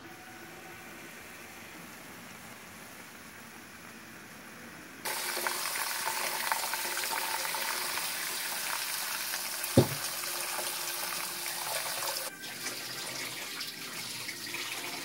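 Kitchen tap water running onto cooked noodles in a mesh strainer, rinsing them. The tap comes on suddenly about five seconds in and runs steadily for about seven seconds before stopping, with a single knock partway through.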